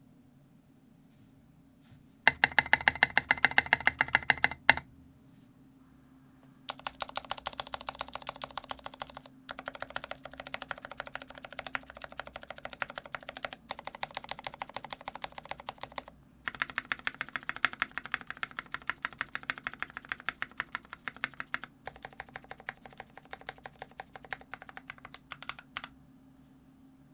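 Stabilized long keys on an LZ Iron Antique mechanical keyboard (Gon stabilizers, lubed Gateron Ink Black switches, brass plate) pressed in quick repeated runs to show how the stabilizers sound. There is a loud run of clacks about two seconds in, then several longer runs of rapid keystrokes separated by brief pauses.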